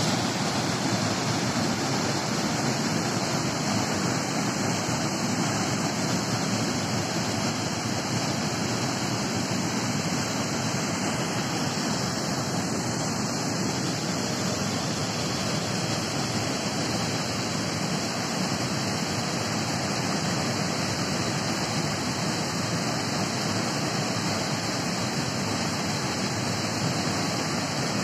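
Steady rushing of swollen, muddy river water spilling over a concrete weir and churning in the pool below.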